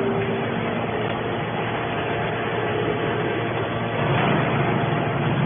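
Iron scrap baler plant machinery running: a steady, dense mechanical noise, with a held tone that stops about half a second in.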